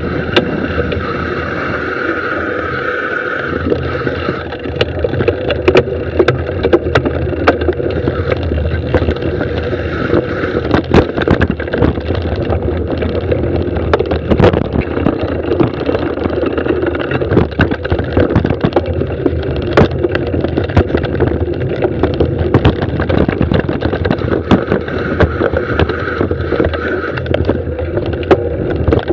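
Mountain bike descending a rough dirt singletrack: steady tyre and trail noise with frequent sharp knocks and rattles from the bike as it goes over rocks and roots.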